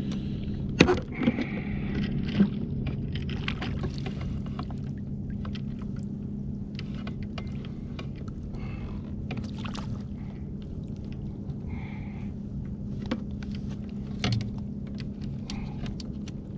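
Scattered clicks, rattles and knocks of a landing net and fishing tackle being handled in a kayak, over a steady low hum. The louder knocks come in the first few seconds.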